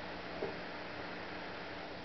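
Steady low hiss and hum of room tone, with one light tap on the wooden tabletop about half a second in.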